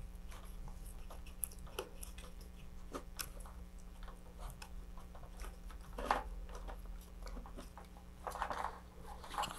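Faint crackling and clicking of a thin plastic model-rocket fairing being flexed, as a wooden dowel presses epoxy clay into the fin gap from inside. The handling noises come in scattered small clicks, a little louder about six seconds in and near the end, over a low steady hum.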